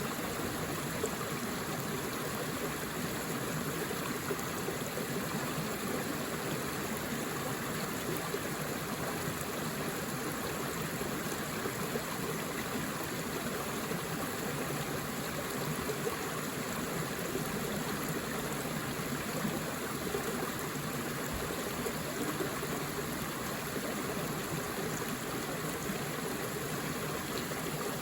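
Forest river flowing steadily over rocks: an even, continuous rush of water with small gurgles and trickles.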